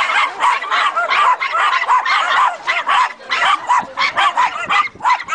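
Several small dogs yapping, in quick short barks that overlap, several a second.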